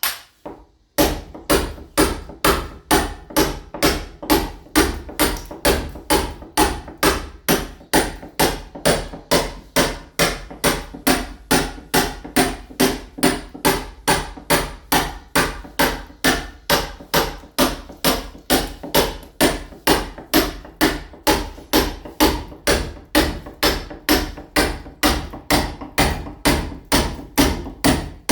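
Club hammer striking a steel chisel against a painted masonry wall, chipping the surface to key it for ceramic tile. Sharp, evenly paced metallic blows, a little over two a second, start about a second in.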